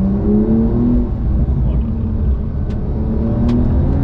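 Porsche 911 GTS (992) twin-turbo 3.0-litre flat-six pulling hard in Sport mode with its automatic gearbox in D, engine pitch climbing, dropping away about a second in and climbing again near the end, over a steady road rumble.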